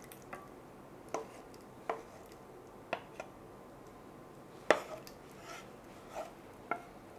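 A wooden spatula scraping and knocking against a pan as tomato sauce is emptied into a glass baking dish: a string of separate short knocks, the loudest about four and a half seconds in.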